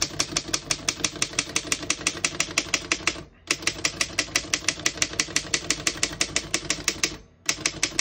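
1928 Underwood No. 5 manual typewriter being typed on quickly: an even rattle of key strikes, about seven a second, broken by two short pauses.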